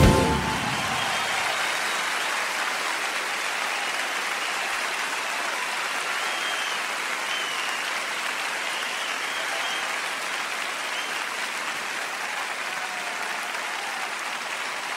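Concert crowd applauding and cheering as the song ends, the band's last note cutting off right at the start. The clapping holds steady, easing slightly, with scattered shouts from the audience.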